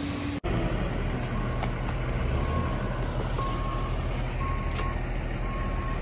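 Diesel engine of heavy earthmoving machinery running steadily, with its reversing alarm giving short, even beeps about once a second. A single sharp knock about five seconds in.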